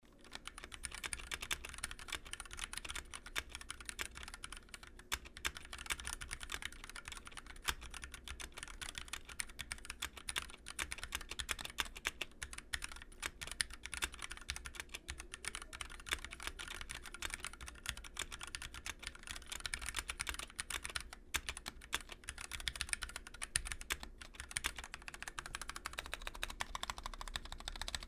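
Fast typing on a Drop Carina 60% hot-swap mechanical keyboard fitted with 67-gram Gateron linear switches and PBT keycaps: a steady stream of key clacks with a few short pauses.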